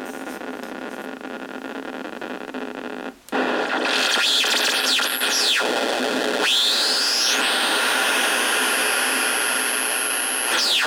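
Joystick-controlled CMOS chaotic noise generator sounding: a steady noise that cuts out briefly about three seconds in and returns louder. Whistling tones then sweep down and up through it, and a high steady whine holds for a few seconds before falling away near the end.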